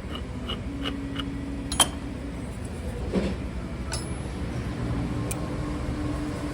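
Light metal clicking at an even pace, about five or six clicks a second, as gearbox parts are handled and turned by hand. It stops about a second in and is followed by a few separate sharp metal clinks, with a faint steady hum underneath. These come from the scooter's rear gearbox, whose worn bearing is blamed for a common low-pitched noise.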